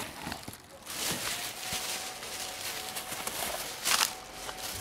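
Plastic grocery bags rustling and crinkling as they are handled, with a louder rustle about four seconds in as a bag is swung.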